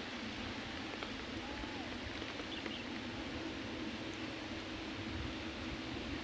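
Steady, high-pitched chirring of insects in the field, unbroken throughout.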